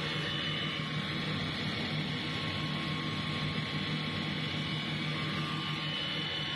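DLG135 single-screw floating fish feed extruder running steadily under load as it turns out puffed pellets: an even machine hum with a constant whine from its electric motor and screw.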